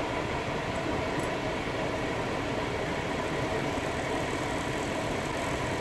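Car ventilation blower running steadily at its third speed, a constant rush of air through the dashboard vents, with the low hum of the idling engine under it.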